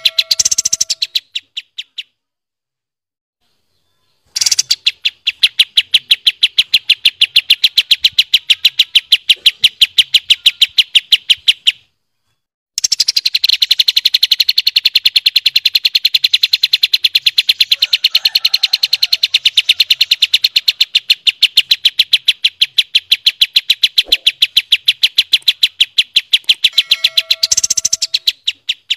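Recorded song of kapas tembak and cucak cungkok songbirds: long rolls of rapid, evenly repeated high notes, several a second, broken by short pauses. A few lower, steadier notes come at the start and again near the end.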